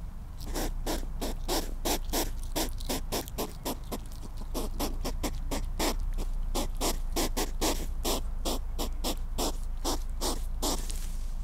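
European hedgehog snuffling: a long run of short, sharp, breathy huffs at about four a second.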